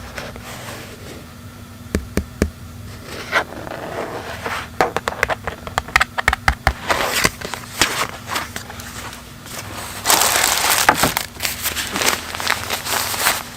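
Hands handling gear: a run of light clicks and knocks, then a louder burst of rustling about ten seconds in.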